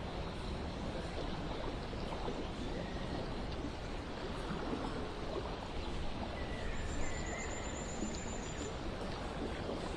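Steady running-water ambience with an even rushing sound, and a faint high trill briefly a little past the middle.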